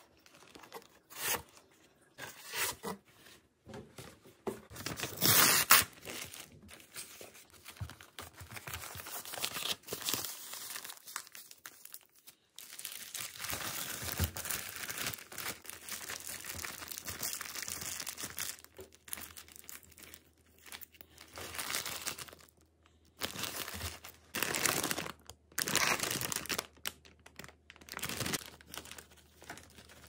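Plastic packaging crinkling and tearing in irregular bursts as food is handled, with a loud burst about five seconds in and a longer stretch of steady rustling in the middle.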